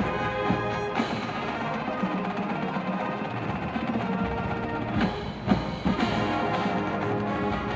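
College marching band playing held brass and wind chords over percussion, with a few sharp drum hits about five seconds in.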